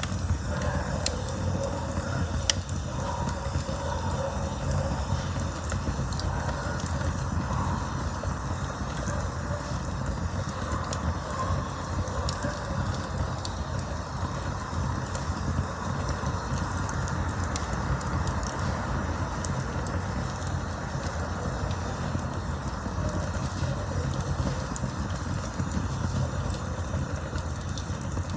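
Campfire burning with a steady low rumble of flames and scattered sharp crackles and pops, one louder pop about two and a half seconds in.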